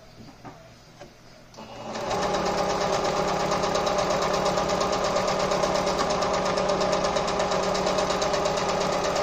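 Singer Patchwork sewing machine starting about two seconds in and running steadily, sewing a straight stitch through fabric with a fast, even needle rhythm. It is a test run after the bobbin was reseated, and the machine stitches normally.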